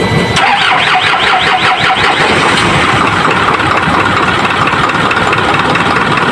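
Isuzu 4HL1 four-cylinder diesel engine cranking on the starter, with an even beat of about five strokes a second starting about half a second in: the long cranking of a hard-starting engine.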